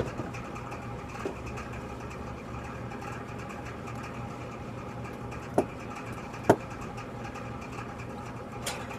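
Steady low machine hum, like a motor or engine running, with a few sharp clicks or knocks, the loudest about six and a half seconds in.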